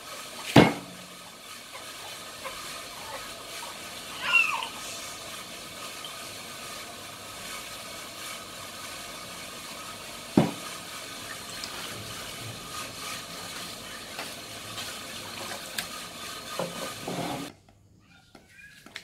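Heavy cleaver chopping garlic on a thick wooden chopping block: a few single sharp chops, the loudest about half a second in and about ten seconds in, with a few lighter ones near the end, over a steady hiss that cuts off suddenly near the end.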